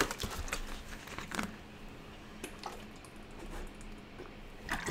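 A dozen or so scattered light clicks and small handling noises while a man drinks from a plastic water bottle, with no speech.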